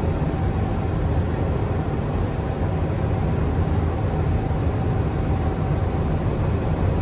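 Steady low rumble inside an Airbus A350-900 flight deck on final approach: airflow noise and the hum of its engines, with a faint steady tone above it.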